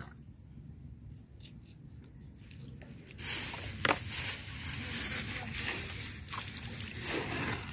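Knife cutting through raw yellowfin tuna, then the flesh being pulled apart by hand. Quiet at first, then a steady tearing, scraping noise from about three seconds in, with one sharp click shortly after.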